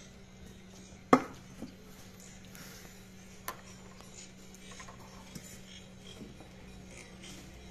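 A steel plate is set down on a wooden table with one loud clank about a second in, followed by the lighter clicks and scrapes of a fork against the steel plate a few times. A low steady hum runs underneath.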